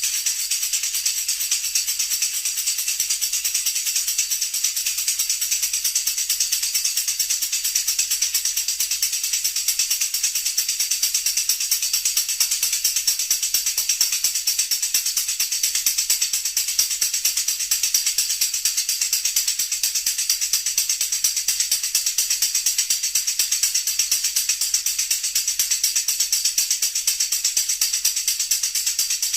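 A continuous, dense high-pitched rattle of countless rapid tiny clicks that starts abruptly and keeps on evenly, without a beat.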